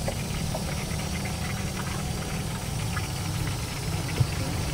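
Steady low roar of a gas stove burner firing under a wok of hot frying oil.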